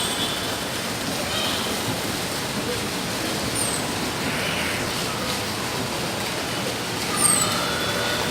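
A steady rushing background noise, with faint voices and a few short high chirps.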